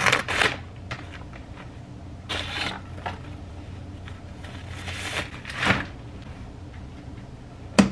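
Paper mailer bag rustling and being cut with scissors, then a folding umbrella being unwrapped and opened, its fabric rustling; a sharp click near the end.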